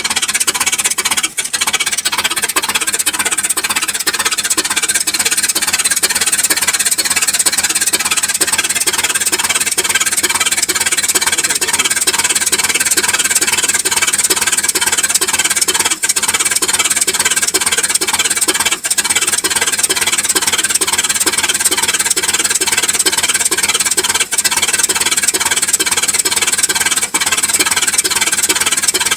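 1975 Rolls-Royce 6.75-litre V8 with twin SU carburettors running steadily, heard close up in the open engine bay, under a steady high-pitched hiss that is the loudest part of the sound.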